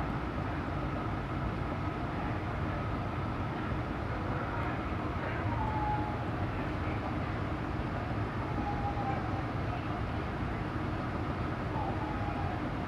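Steady hum and rush of an HVAC air handler's blower running, holding an even level throughout.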